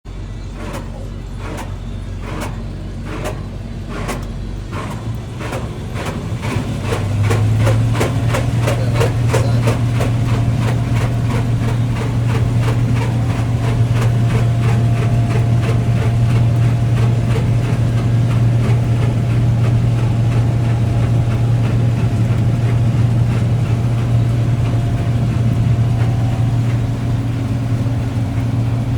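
Heavy diesel engine of farm machinery: slow, regular knocks that quicken over the first seven or eight seconds as it comes up to speed, then a steady run with a low drone and a thin whine above it.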